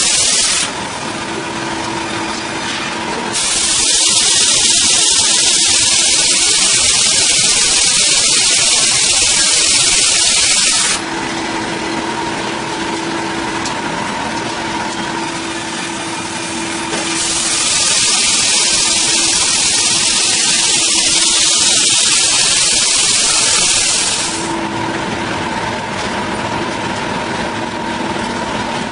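A power saw running steadily and cutting through a large log: two long passes of loud hissing cutting noise, each about seven seconds, with the motor humming evenly between them.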